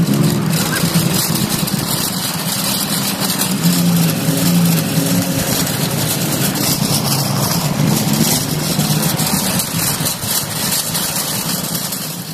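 Metal shopping cart rolling over parking-lot asphalt, its wheels and wire basket rattling steadily, with a low car-engine hum from the lot coming and going.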